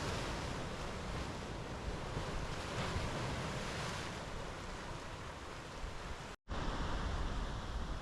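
Ocean waves washing onto a beach, with wind buffeting the microphone. The sound cuts out completely for a split second about six seconds in, then returns with more low wind rumble.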